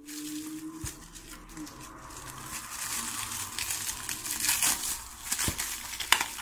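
Clear plastic wrapping film crinkling and rustling as it is handled and peeled off a boxed battery by hand, with a few sharp crackles near the end.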